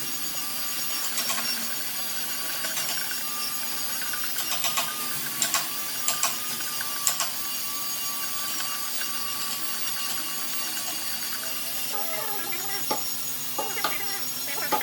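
A steady machine hum with several sharp clicks and knocks in the first half, and a voice or animal call near the end.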